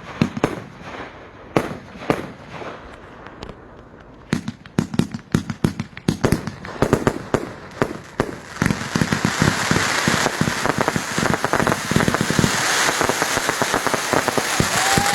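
Fireworks finale going off: a rapid string of sharp bangs, then from about nine seconds in a dense, continuous crackle of many small reports that grows louder.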